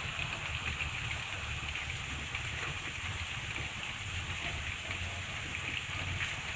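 Steady rain falling, a constant hiss with fine patter, over a low rumble.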